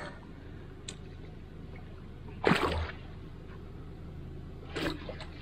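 A sharp swish and splash in the water about two and a half seconds in, with a smaller splash near the end over a low steady background hum.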